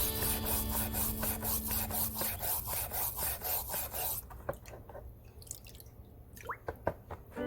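Rusty steel monkey wrench being scrubbed by hand in rapid back-and-forth strokes, about four a second, to polish off the rust. The scrubbing stops about four seconds in, leaving a few faint drip-like clicks.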